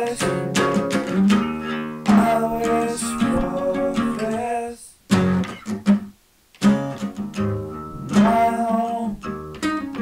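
Music with plucked and strummed guitar, stopping for a short pause about five seconds in before starting again.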